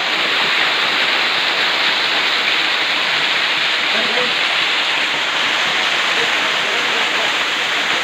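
Waterfall's falling water making a steady, even rush.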